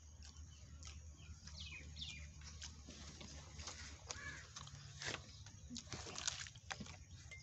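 Faint crunching and chewing of crisp fried samosa pastry, with small birds chirping in the background, over a steady low hum.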